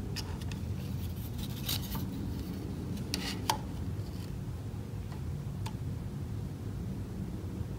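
Digital calipers sliding and clicking shut on a small wood block on a metal saw table: scattered light scrapes and clicks, the sharpest about three and a half seconds in, over a steady low hum.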